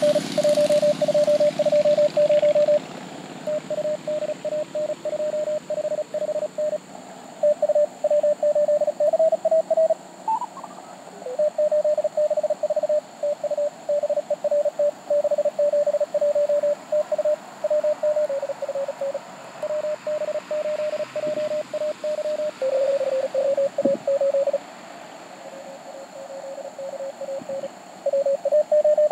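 Morse code (CW) signals in a Mountain Topper MTR4B transceiver's audio: rapid on-off keyed tones near one pitch, with a few stations at slightly different pitches, over noisy band static. They are CWT contest exchanges of callsigns, names and member numbers.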